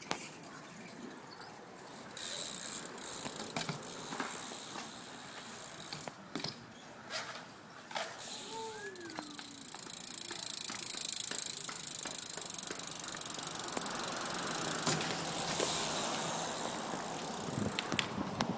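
BMX bike ridden on skatepark concrete: tyres rolling with a rushing sound that builds about halfway through, the rear hub's ratchet clicking, and scattered knocks from the frame and wheels.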